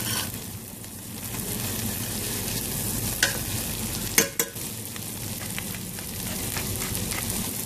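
Butter with chopped garlic and onion sizzling steadily in a stainless steel frying pan around a browned chicken roll as a spoon bastes and stirs it. Two sharp clinks of the spoon on the pan, about three and four seconds in.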